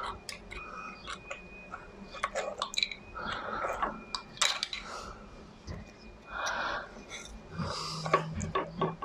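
Steel drift clicking and scraping against the holes of a threaded locking collar in an Archdale milling machine's spindle head as it is levered round by hand, in irregular short taps: the oiled collar is being unwound to free the spindle.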